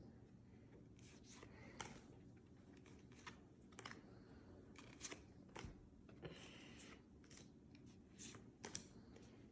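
Near silence with faint, scattered soft clicks and rustles of trading cards being handled and flipped through one by one.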